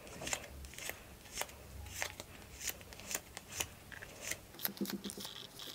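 A deck of small cardboard game cards being thumbed through one card at a time, each card sliding off with a faint papery click, about two a second.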